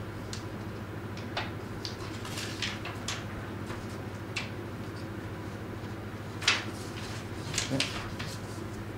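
Paper sheets rustling and crinkling as they are unpinned and taken down from a notice board: a scatter of short crackles and light taps, the loudest about six and a half seconds in and a few more near the end, over a steady low hum.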